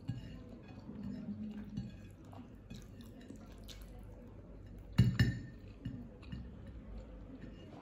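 A person eating by hand from a ceramic plate: soft chewing and fingers scraping food together on the plate, with a sharp clink on the dishware about five seconds in, struck twice in quick succession.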